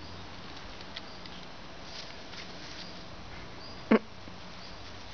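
A dog gives one short, loud bark about four seconds in, over faint scattered rustles and clicks.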